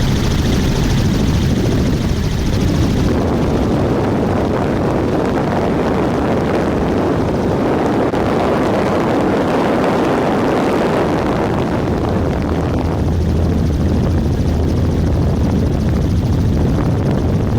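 Helicopter in flight: a steady, loud drone of rotor and engine noise with a low hum underneath. A high hiss on top fades out about three seconds in.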